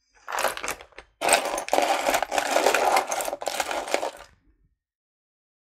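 Loose costume-jewelry earrings rattling and clinking as a hand rummages through a small container of single earrings; it stops about four and a half seconds in.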